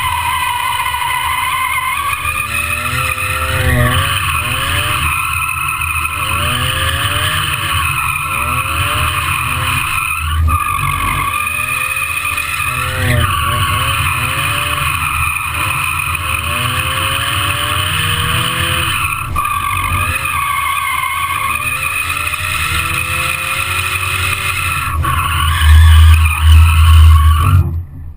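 Mazda Miata drifting: the tyres squeal continuously as the car slides, while the engine revs up in repeated rising sweeps every second or two. Near the end a loud low rumble runs for a couple of seconds.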